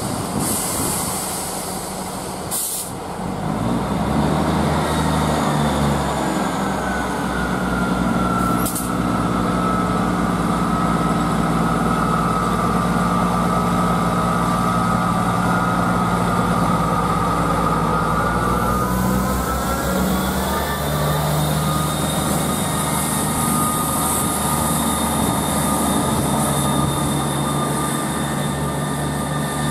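ScotRail Class 158 Express Sprinter diesel multiple unit running at the platform. Its underfloor diesel engines drone steadily, louder from about four seconds in, with a whine that dips and then climbs in pitch. Two sharp clicks come near the start.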